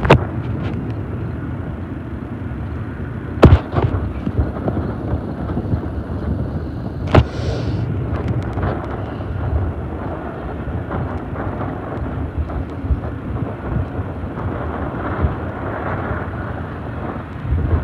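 Wind rumbling on the microphone over the distant sound of an approaching BNSF diesel-hauled double-stack freight train. Two sharp knocks, about three and a half seconds in and again about seven seconds in.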